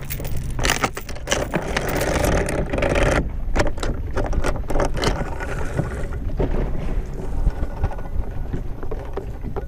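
Boat anchor chain rattling out over the bow for about three seconds as the anchor is dropped, then the anchor rope paying out with only occasional light knocks against a steady low rush of wind and water.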